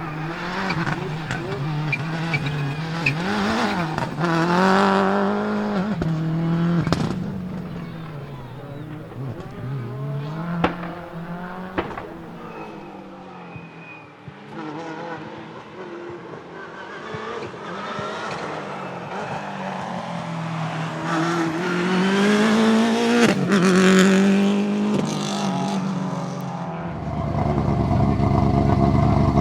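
Subaru Impreza S7 WRC rally car's turbocharged flat-four engine revving hard, its note rising and falling repeatedly through gear changes, with a few sharp anti-lag bangs. Near the end the sound switches to a steady, even engine note.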